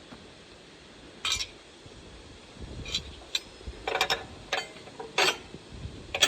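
Metal hydraulic quick-coupler fittings clinking as they are handled and pulled apart: about eight sharp, irregular clinks, several in quick succession around the middle and the last one the loudest.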